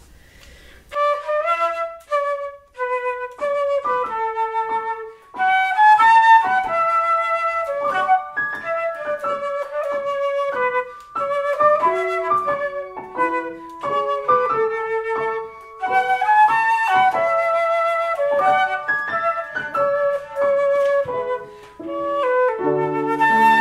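Concert flute playing a quick solo melody, starting about a second in. A piano accompaniment comes in near the end.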